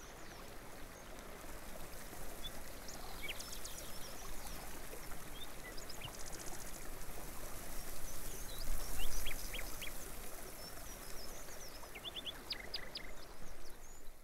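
Small birds chirping in short, scattered calls over a steady hiss of running water, with a brief low bump about nine seconds in.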